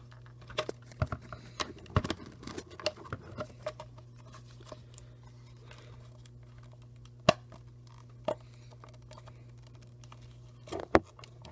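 Plastic clicks and taps of a Panasonic SDR-H40P camcorder's side cover being pressed and snapped onto the body: a run of small clicks at first, two sharp single clicks a little past the middle, and a quick cluster near the end, over a steady low hum.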